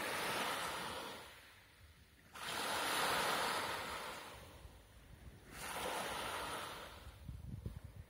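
Small sea waves breaking on a sand-and-pebble shore: three surges, each rushing in suddenly and hissing away over a second or two. Wind buffets the microphone near the end.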